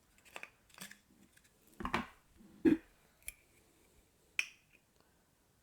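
Scattered clicks and knocks of a liquor bottle and measuring jigger being handled while measuring out amaretto, about half a dozen in all, the loudest a little under three seconds in.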